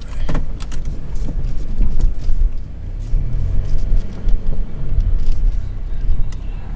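A car being driven, its engine and road noise making a loud low rumble. Scattered knocks and clicks run over it.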